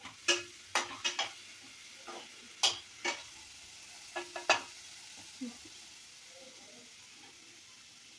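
Spatula scraping and knocking against a nonstick kadai as chopped vegetables and masala are stirred while they fry, over a faint sizzle. The stirring strokes are irregular and stop about four and a half seconds in, leaving only the soft sizzle.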